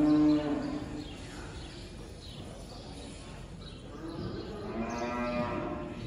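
Cattle mooing: one call trails off in the first second, and another starts about four seconds in and lasts nearly two seconds.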